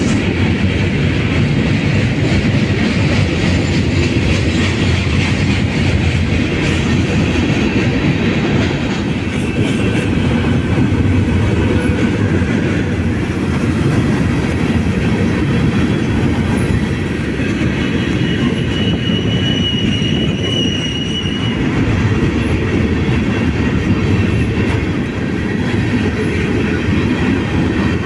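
Freight train of gondola cars rolling past, a steady noise of steel wheels running on the rail, with a brief high wheel squeal a little past two-thirds of the way through.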